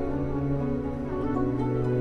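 Slow background music of long-held notes, with the chord changing about halfway through.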